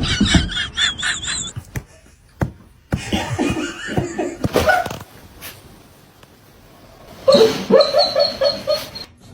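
People laughing in three bouts, the first a quick run of high-pitched laughs right at the start.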